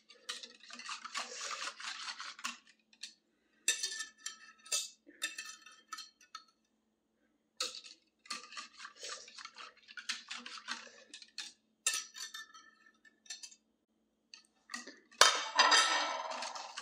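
Wire whisk beating an ice-cream base of softened cream cheese, milk and cream in a small cup: rapid clinking and rattling in bursts, with a few short pauses. A louder clatter near the end.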